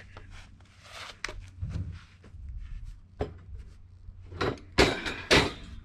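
Wooden knocks and thuds as a cut log knee brace is lifted and handled, with two loud, sharp knocks about half a second apart near the end.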